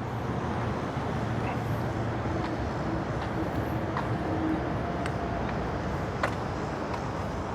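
Steady low vehicle rumble with a faint hum, and a few light clicks scattered through it.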